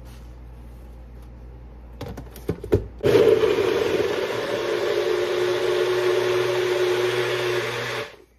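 NutriBullet personal blender running for about five seconds as it blends a fruit and yogurt smoothie, then stopping abruptly. Just before it starts, a few knocks as the cup is set onto the motor base.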